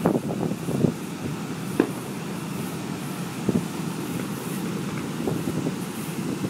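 Fireworks bursting: a few scattered bangs, about two seconds apart, over a steady low rumble of the show and wind on the microphone.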